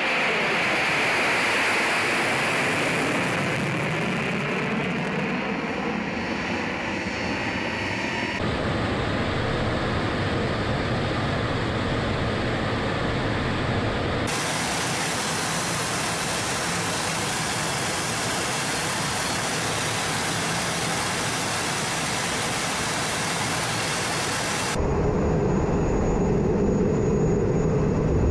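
Tu-160 strategic bomber's four jet engines as the aircraft climbs away overhead, the pitch sliding down as it passes. After a cut there is the steady roar of jet engines and airflow heard from inside the cockpit in flight. Near the end the engine noise grows louder with a steady hum, as the bomber closes on a tanker's drogue for aerial refuelling.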